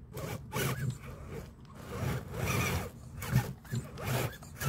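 RC4WD TF2 scale crawler's electric motor and gears whirring in short, irregular bursts as the throttle is worked to free the truck from a stuck position.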